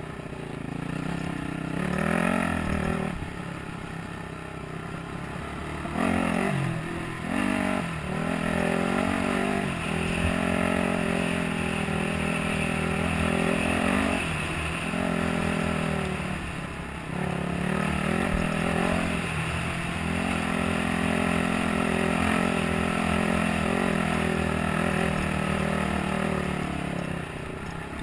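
Dirt bike engine heard from on the bike, revving up and dropping off again and again as the throttle is opened and rolled off along a trail.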